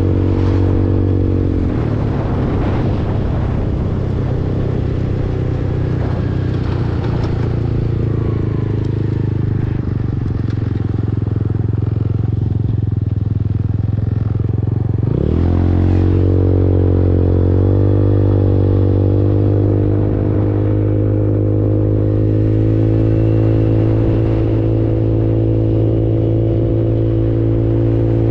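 150cc Super Hornet automatic motorcycle engine running on the road. Its pitch drops as the throttle eases off about a second and a half in, sweeps back up sharply about fifteen seconds in, and then holds a steady cruising pitch.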